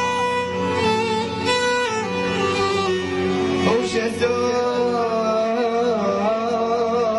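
Music: a man singing a long, slowly wavering melody with instrumental backing.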